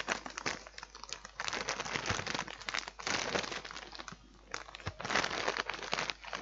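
A plastic snack packet crinkling and rustling in several bursts with short pauses as hands rummage through it.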